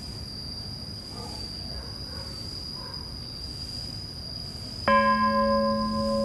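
A bell struck once about five seconds in, ringing on with several sustained tones and a slow wavering hum, over a steady high-pitched drone.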